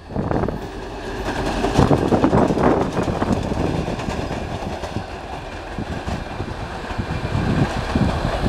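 Two-section 2TE10M diesel locomotive running light past, its wheels clattering over the rail joints over the running of its diesel engines.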